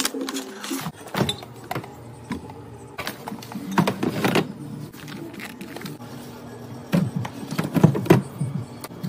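Irregular clicks, knocks and clatters of grocery items and containers being handled and set down, with clusters of handling sounds about a second in, around three to four seconds in, and again near the end.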